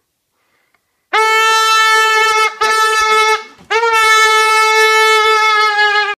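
Air let out through the stretched neck of a rubber balloon, giving a loud, steady squeal held at one pitch. It starts about a second in, breaks off briefly, fades out just past the middle and starts again moments later.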